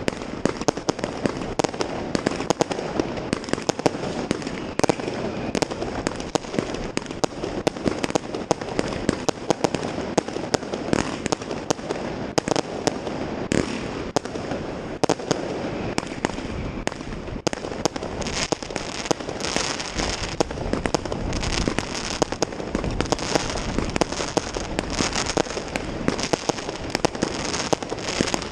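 New Year's fireworks and firecrackers going off continuously all around, a dense, irregular barrage of sharp bangs and pops over steady crackling, with no let-up.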